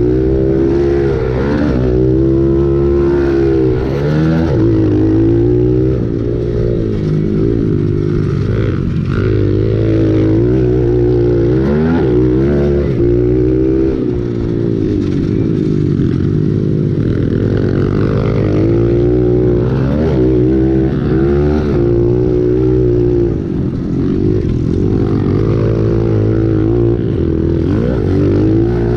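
Pit bike engine under race throttle, its revs climbing and dropping over and over every second or two as the rider opens and closes the throttle, heard loud from on board the bike.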